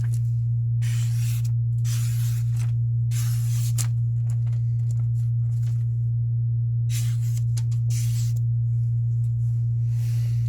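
Knife-sharpening machine's motor running with a steady low hum, while a knife blade makes about six brief hissing strokes, each under a second, as its sharpened edge is tested.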